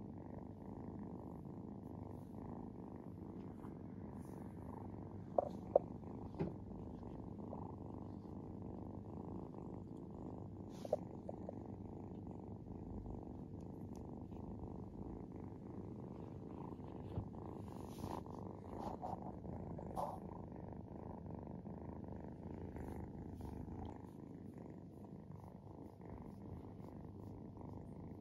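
Kitten purring steadily while being petted, with a few short clicks now and then. The purr gets a little softer near the end.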